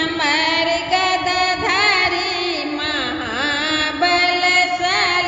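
Hindu devotional bhajan singing: a long melodic passage of held, wavering and gliding notes with no clear words, with musical accompaniment.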